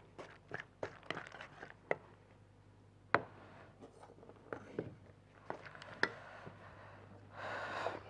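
Scattered clicks and knocks of cookware and utensils being handled at a stovetop, with a few sharper knocks among them, then a brief rustling noise near the end.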